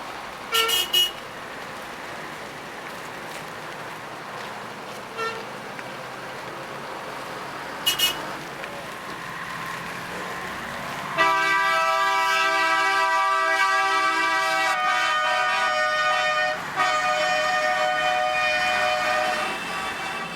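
City street traffic with car horns: two quick toots about half a second in and another short one around 8 seconds, then a loud, long held horn blast from about 11 seconds, briefly broken near 17 seconds, over a steady hum of passing traffic.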